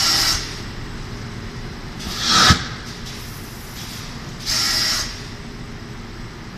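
Paper pulp egg tray forming machine cycling over a steady machine hum. There is a short hiss of air at the start and another about four and a half seconds in, and between them a swelling hiss that ends in a sharp knock.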